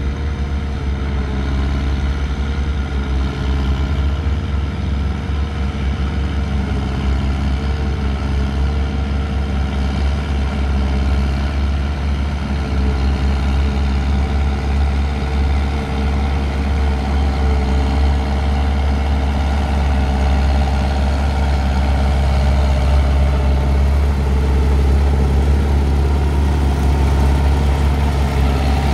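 Tractor-drawn forage harvester chopping standing maize and blowing it into a forage wagon, with the tractor engines running steadily under load. The sound grows a little louder near the end.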